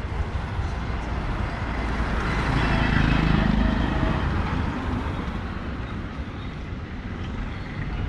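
A car passing close by on the road: its engine and tyre noise swells to a peak about three seconds in, then fades away, over a steady low rumble of traffic.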